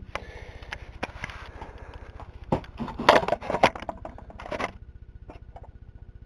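Handling noise: rustling and clatter of objects being moved and set down, with a cluster of sharp knocks about two and a half to three and a half seconds in, over a faint steady hum.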